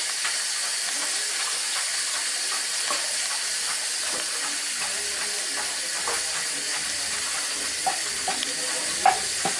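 Light knife chops and scrapes as a large knife hacks a firm peeled fruit into thin shreds by hand, with a few sharper taps near the end, over a steady hiss.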